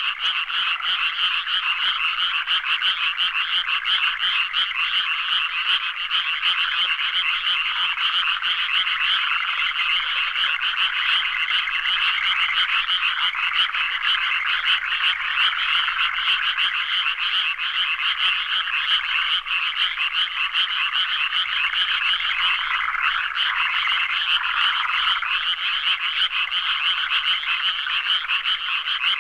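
A chorus of many frogs calling at once, a dense, unbroken mass of rapid, pulsing croaks.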